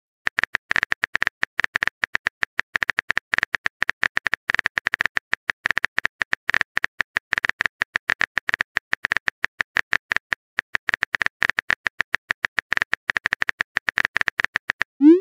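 A fast, uneven run of short, sharp clicks, many each second, each with a high tone, followed by a brief rising swoop at the very end.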